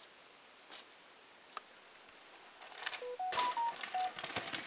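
Mountain bike coming down a rocky forest trail toward the camera: tyre noise and rattling clicks start about halfway through and grow louder. Around the same time there is a quick run of five short beeps at different pitches.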